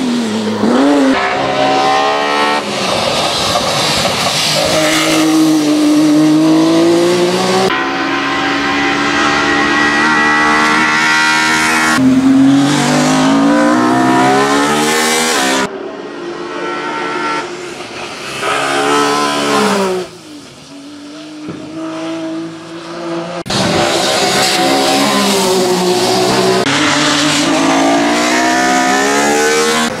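Ford Escort Mk2 RS 2000 hillclimb race car at full throttle, its engine revving up hard and dropping in pitch at each gear change, over several passes cut one after another. The car goes more distant and quieter for a few seconds about two-thirds of the way through, then comes back loud.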